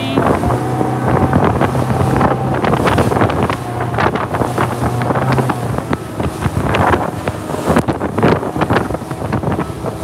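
Wind buffeting the phone's microphone and choppy water slapping and splashing against a chase boat's hull as it runs at speed, with the boat's motor humming steadily until about 6 s in.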